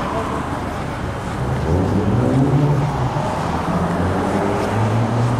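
Street traffic: a car engine running, its pitch rising gradually as the vehicle accelerates.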